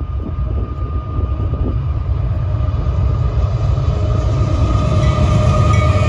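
Freight train running past, pulled by several diesel locomotives: a steady low rumble that grows gradually louder.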